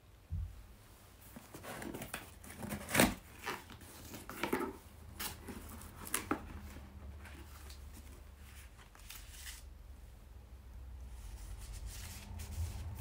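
A cardboard shipping box being handled and its flaps pulled open: a string of knocks, scrapes and rustles, the loudest about three seconds in. After that, quieter paper rustling as envelopes are lifted out, over a low steady hum.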